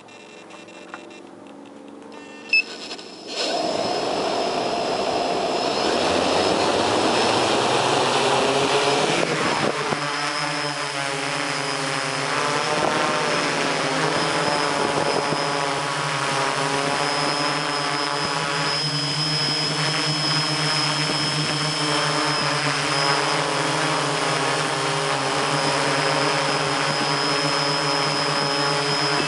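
Mikrokopter hexacopter's six electric motors and propellers heard from the camera mounted on the craft. After a single click, the motors start suddenly about three seconds in and change pitch for several seconds as it lifts off. They then settle into a steady whine of several tones while it flies.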